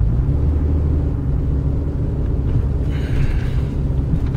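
Car engine and tyre noise heard from inside the moving car's cabin: a steady low rumble and hum while driving at road speed.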